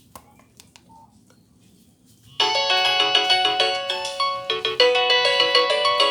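Nokia 6085 mobile phone playing a polyphonic ringtone: a busy melody of many quick notes that starts abruptly about two and a half seconds in, after a few faint clicks.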